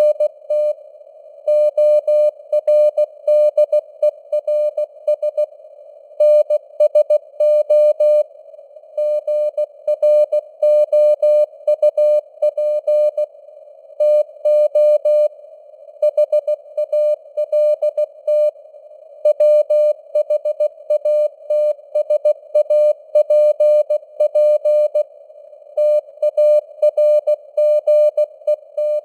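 Morse code at 16 words per minute: a steady tone of about 600 Hz keyed on and off in dots and dashes, grouped into words with short pauses between them, over a narrow band of simulated radio receiver noise.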